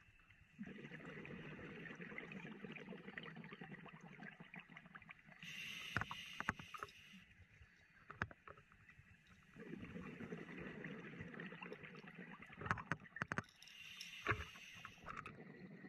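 Scuba diver breathing through a regulator underwater: two slow breaths, each a long, low rush of noise followed by a shorter, higher hiss with sharp clicks.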